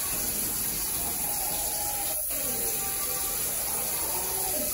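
Tap water running steadily, a constant even rush.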